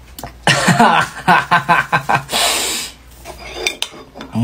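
Spoon clinking and scraping inside a ceramic mug in a quick run of knocks, followed by a short hiss.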